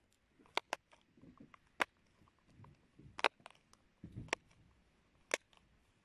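Silicone bubbles of a flower-shaped pop-it fidget toy being pressed through one by one, giving about six sharp pops at uneven intervals. Fainter clicks and soft handling noise fall between them.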